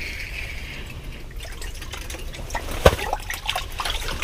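Water splashing and dripping as a bluegill is pulled up out of an ice-fishing hole. A spinning reel is cranked just before, and there is one sharp knock about three seconds in.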